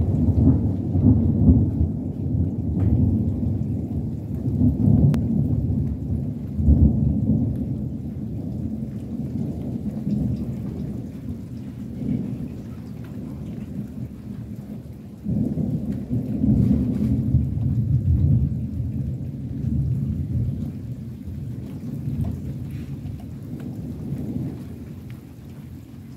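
Rolling thunder rumbling low and long, swelling and easing, with a fresh surge of rumble a little past halfway before it slowly dies down.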